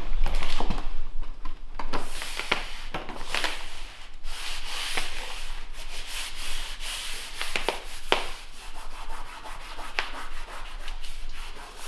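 Vinyl plank flooring being laid: planks scraping and rubbing across the floor, with short sharp knocks and clicks as they are fitted into place.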